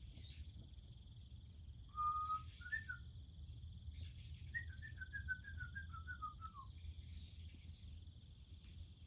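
Crickets trilling steadily as a bird sings: a held whistle about two seconds in, then a run of quick notes falling in pitch midway through.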